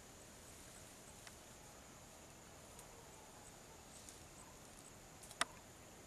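Quiet outdoor ambience: a faint, steady high-pitched insect drone, with a few light ticks and one sharp click about five seconds in.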